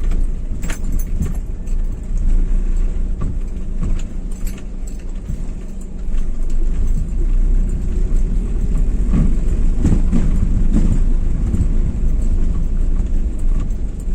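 Cabin sound of a 2011 Daihatsu Xenia 1.3 being driven: a steady low rumble from the engine and road, with scattered light rattles and knocks. It gets louder about six seconds in.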